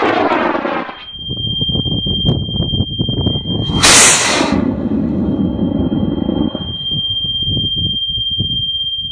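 High-power rocket motors firing. A roar that fades as a rocket climbs away cuts off about a second in. About four seconds in, a sudden loud roar at liftoff, heard right beside the launch pad, dies away over the next two seconds. A steady high-pitched beep tone sounds under most of it.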